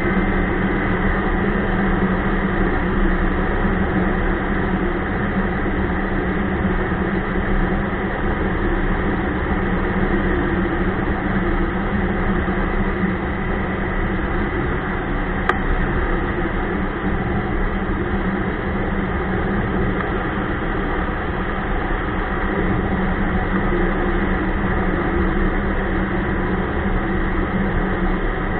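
Ski-Doo Expedition LE snowmobile running steadily under way, its engine and track making an even drone with a strong low hum.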